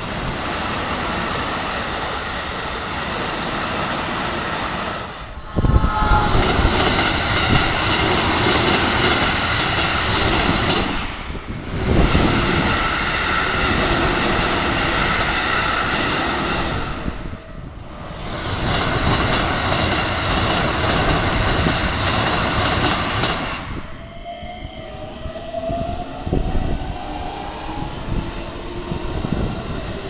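Electric commuter trains passing fast over a level crossing: steady wheel-on-rail rumble with the crossing bell ringing. Several passes are joined, with abrupt jumps in the sound about 5, 12 and 18 seconds in. Near the end comes a rising motor whine.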